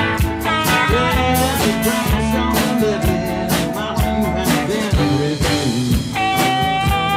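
Live country-blues band playing an instrumental break: a pedal steel guitar plays sliding, held lead notes over strummed acoustic guitar, electric guitar and a steady drum beat.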